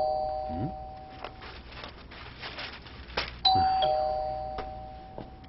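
Doorbell chime, a two-note ding-dong falling in pitch and ringing out, rung again about three and a half seconds in.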